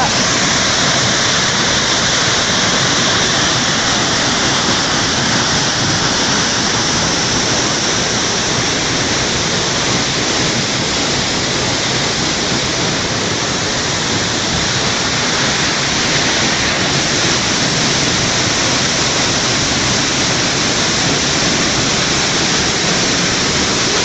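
Waterfall pouring into its plunge pool: a steady, loud, unbroken rush of falling water.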